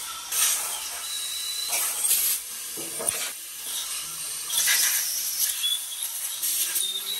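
Compressed-air blow gun hissing in repeated short bursts as a cylinder head is blown off.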